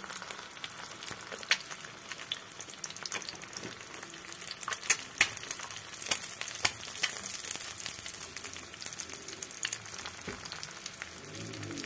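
An egg frying in hot oil in a shallow pan: a steady sizzle with sharp pops and crackles scattered through it.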